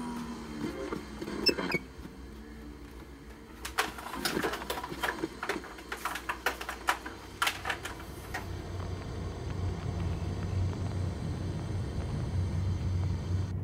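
Small clicks, taps and rattles of a plastic device and its power cord being handled: one sharp click near the start and a busy run of them in the middle. From about two-thirds of the way through, a steady low rumble sets in underneath.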